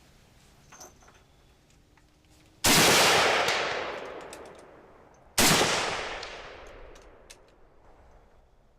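Two single rifle shots from an AK-pattern rifle, about two and a half seconds apart, each followed by a long echo that dies away over a couple of seconds.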